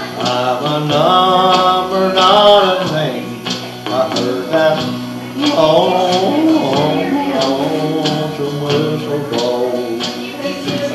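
A man singing a country song, drawing out long sliding notes over a steady strummed accompaniment.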